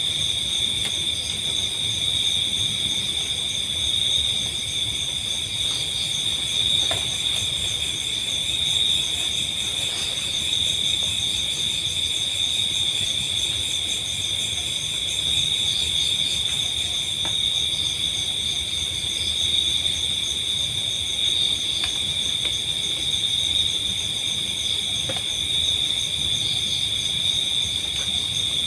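Steady chorus of night insects such as crickets, trilling without pause in several high pitches at once, with a few faint ticks.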